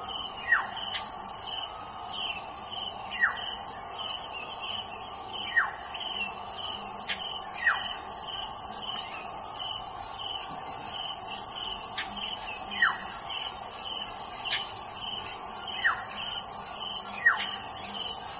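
Short high squeaking calls that fall quickly in pitch, one every two to three seconds, over a steady pulsing insect chorus with a few faint clicks.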